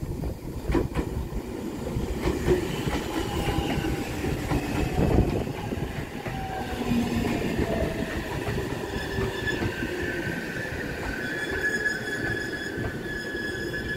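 JR Central 313 series electric multiple unit running past at close range: a rumbling wheel noise with clicks over the rail joints and a falling whine around the middle. A steady high squeal from the wheels sets in about two-thirds of the way through.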